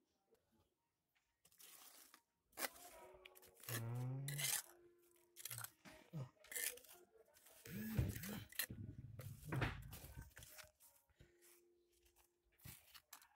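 Spoon scraping and digging through crumbly soil and dry leaves, a series of short, faint crunching scrapes.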